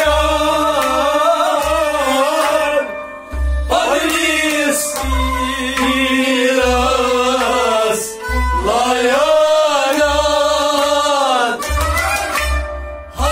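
Men singing a Kashmiri devotional kalam in long, wavering held phrases, with a Kashmiri rabab and a tumbaknari clay drum. The drum's low strokes keep time and come thicker near the end, and the singing breaks briefly about three and eight seconds in.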